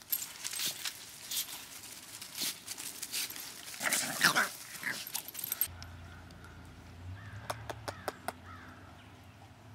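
Boston Terrier puppies scampering through dry leaves and grass, with rustling and crunching and a short bark about four seconds in. After that come a few light clicks and faint whimpers.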